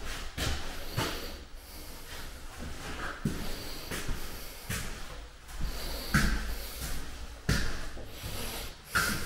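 Irregular footsteps and scuffs on a porcelain plank tile floor, with breathing close to the microphone.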